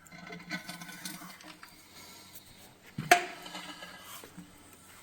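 Metal tools and engine parts being handled on a workbench: light clinking, then a sharp metallic clank with a short ring about three seconds in, and another right at the end.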